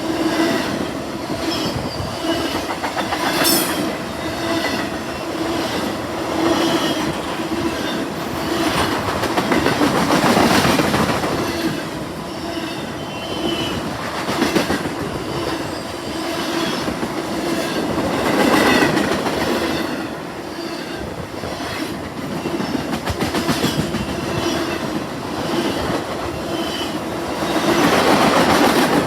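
Freight train cars rolling past, wheels clacking over rail joints again and again with a steady rumble and a faint ringing tone from the wheels. The sound swells louder and eases back several times.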